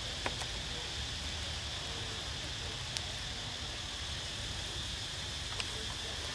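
Steady outdoor background hiss with a low rumble, broken by three short faint clicks: one near the start, one about three seconds in and one near the end.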